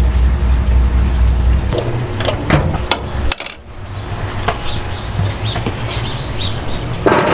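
Sharp metal-on-metal clinks and clanks from the steel offset smoker's door and grates, several in quick succession about two to three seconds in, with lighter clinks later. A low rumble runs under the first two seconds and then drops away.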